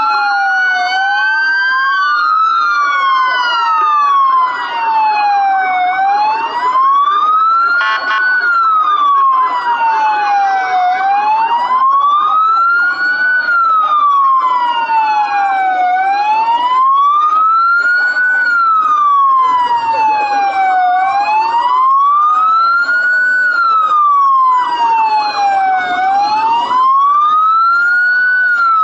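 Emergency vehicle siren wailing, its pitch rising and falling slowly about once every five seconds, with a second, fainter wail overlapping out of step.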